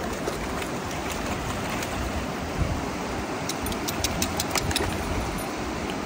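River rapids rushing steadily over rocks, with a short run of faint sharp clicks a little after halfway.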